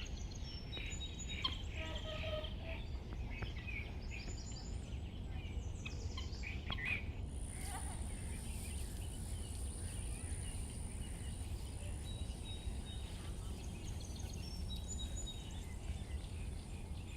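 Birds chirping and calling outdoors over a steady low rumble, the calls thickest in the first half; about halfway in, a thin, high, steady tone joins and holds.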